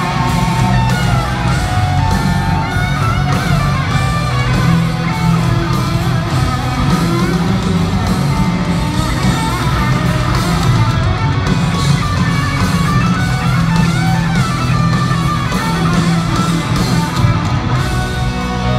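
A live rock band playing at stadium volume: a Les Paul electric guitar plays a lead line with bending, gliding notes over drums and bass.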